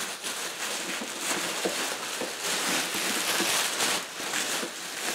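Plastic bubble wrap crinkling and rustling as it is pulled off a box by hand, a steady crackle dotted with small clicks.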